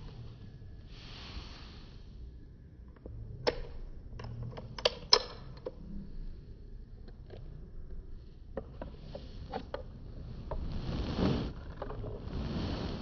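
Handling of a revolver: a quick cluster of sharp metallic clicks about three and a half to five and a half seconds in, then scattered lighter clicks. A soft rustling rush comes near the end.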